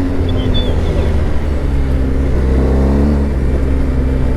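BMW R 1250 GS Adventure's boxer-twin engine under way: the revs fall at a gear change right at the start, climb again, and drop once more at a second shift a little past halfway.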